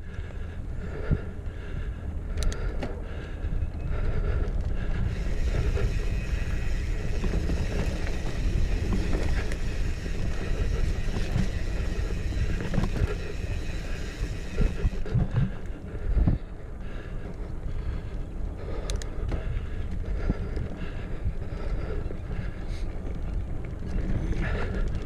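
A 2016 Specialized Stumpjumper Comp 6Fattie mountain bike ridden along a dirt trail, heard from a chest-mounted camera: a steady low rumble of tyres and drivetrain with wind buffeting the microphone. A few sharp clicks and knocks of the bike come through, and a brighter rushing hiss swells through the middle for about ten seconds.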